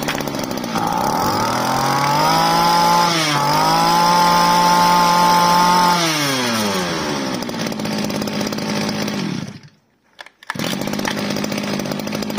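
Ryobi EK-230 brush cutter's small two-stroke engine running. It idles, is revved high for several seconds with a brief dip in the middle, then settles back to idle. It cuts out about ten seconds in and is running at idle again a second later.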